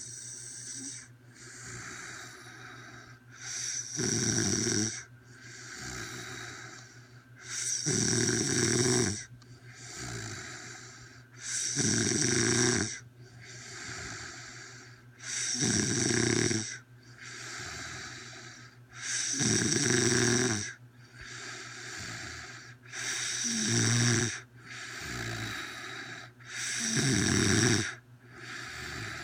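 A woman snoring loudly in her sleep: a loud snore about every four seconds, with a softer breath between each.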